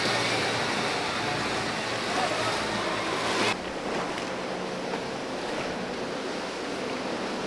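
Rushing, churning water from boat wakes and choppy waves, with wind on the microphone. About three and a half seconds in the sound changes abruptly to a duller wash of waves with a faint steady engine hum under it.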